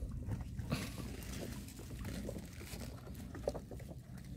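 Faint knocks and rustles of a large wire-framed net fish trap being handled against a wooden boat, over a steady low rumble of wind on the microphone.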